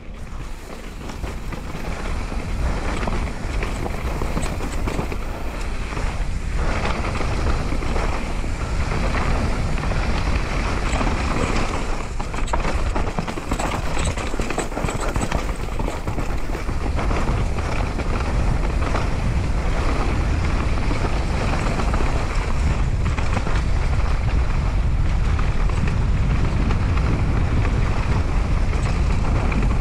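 Wind rushing over the microphone during a fast downhill mountain bike run, with the tyres and bike clattering over rough trail in scattered knocks. It is steady throughout, rising slightly in the first two seconds.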